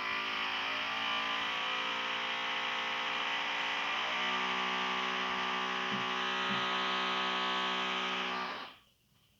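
Electric drill boring into a wall, its motor running with a steady whine, then stopping near the end.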